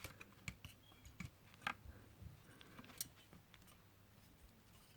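Faint, scattered clicks and light taps of hard parts being handled as a graphics card's cooler is fitted back on, the clearest about a second and a half in and about three seconds in.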